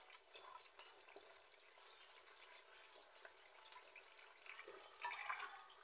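Faint simmering of tomato sauce in a wok, with a soft bubbling hiss and scattered light ticks and drips as fried banana, carrot and potato pieces go in; a brief louder burst about five seconds in.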